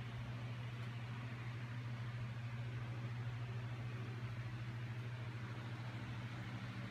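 Steady low hum with a faint hiss behind it, unchanging throughout.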